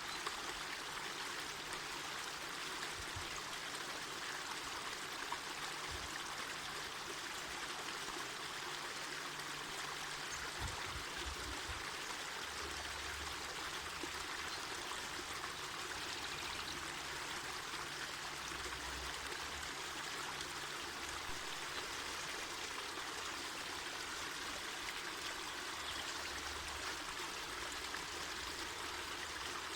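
Mountain forest river running over rocks: a steady, even rush of water.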